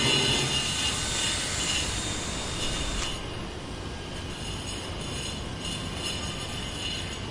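Construction site ambience: heavy machinery running with a high metallic squeal. The noise drops off noticeably about three seconds in.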